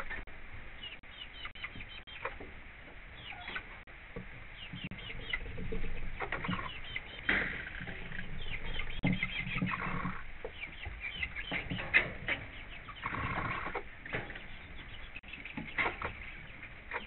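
Chickens clucking softly among themselves, over many short sharp taps of beaks pecking feed off the coop floor.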